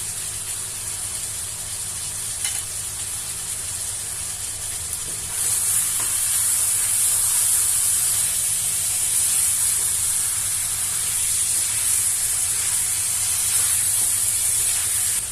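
Chicken pieces and whole spices sizzling as they fry in oil and masala in a pan, a steady hiss that gets louder about five seconds in.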